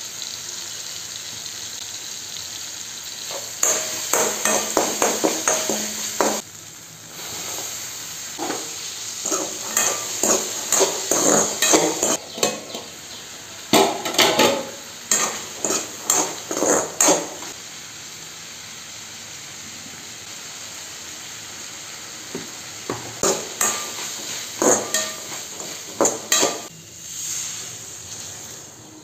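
Onions and tomatoes, then green peas, sizzling in oil in a steel kadai, with runs of a metal spatula scraping and clinking against the pan as they are stirred. Near the end, water is poured into the pan.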